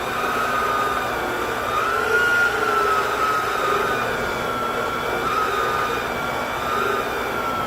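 Portable band saw running and cutting through a doubled 2x4, about 3 inches of lumber: a steady motor whine whose pitch wavers slightly as the load on the blade changes.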